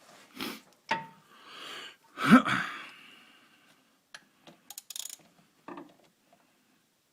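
Metal clinks and knocks of a socket wrench being fitted to and worked on a gearbox drain bolt, with one loud knock about two seconds in and a few light clicks later.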